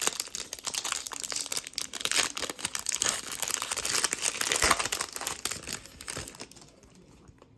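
Plastic trading-card pack wrappers crinkling as packs of 2022 Panini Mosaic football cards are handled and torn open, a dense rapid crackle that dies away about six and a half seconds in.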